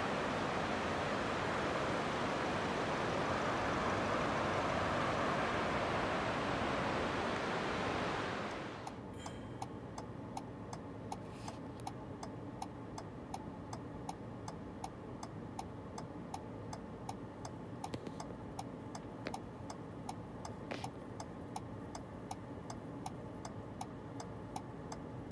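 A steady outdoor rushing noise that cuts off about eight seconds in. What follows is a quieter car interior with a car's indicator flasher ticking steadily and evenly.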